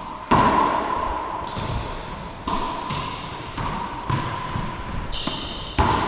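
Racquetball rally: a series of sharp smacks as the ball is struck by racquets and hits the court's walls and floor, about five hits with the loudest right at the start, each ringing in the enclosed court.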